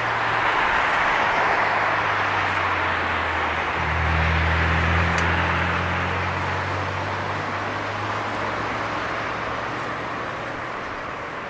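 Airbus A340-300's four CFM56-5C turbofan engines running at taxi power: a steady jet rush and whine, with a low hum that swells about four seconds in and eases off a few seconds later, the whole sound slowly fading toward the end.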